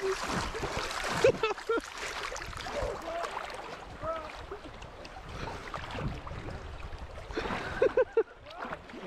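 River current splashing and gurgling through a shallow run, with a few brief voice sounds over the water, the loudest about a second in and again near the end.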